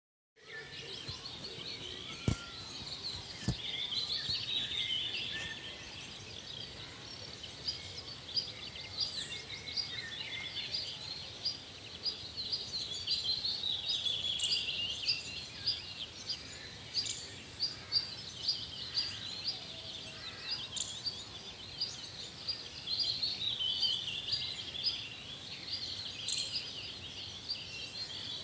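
Natural outdoor ambience: a dense chorus of small birds chirping and calling in rapid, high notes, over a faint background hiss.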